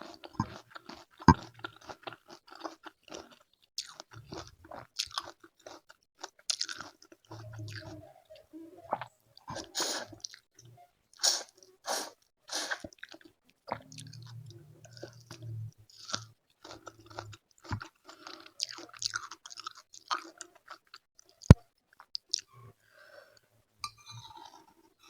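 Close-miked eating sounds of fried tempeh and sayur asem: repeated crunchy bites and chewing in an irregular run. A single sharp click, the loudest sound, comes a little past two-thirds of the way in.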